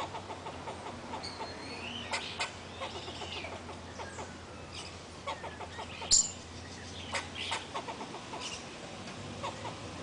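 Small wild birds chirping and calling in short, scattered notes, with one loud, sharp, high note about six seconds in.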